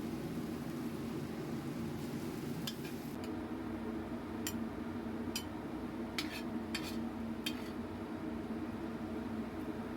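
A cooking utensil clinking against a pan about seven times while food is stirred, over a steady low hum.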